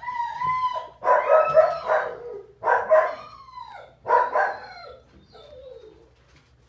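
Puppies play-wrestling, one or more giving high-pitched play cries: four loud yipping, whining outbursts about a second apart, their pitch falling away at the end, then a fainter falling whine.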